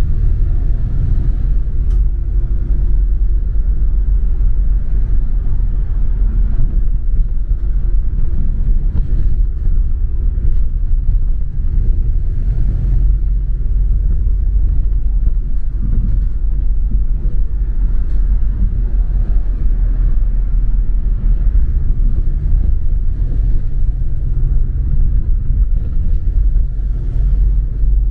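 Double-decker bus on the move, heard from on board: a steady low rumble of engine and road noise.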